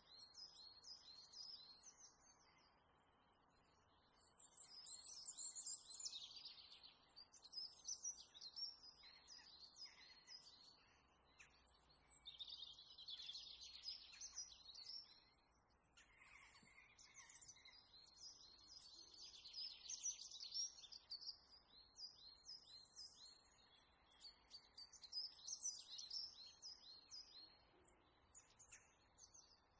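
Faint birdsong: small birds chirping in many quick, repeated high notes, in bunches every few seconds.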